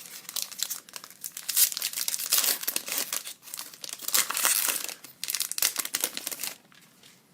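A hockey trading-card pack wrapper being torn open and crinkled by hand, with irregular crackling rustles that stop about a second before the end.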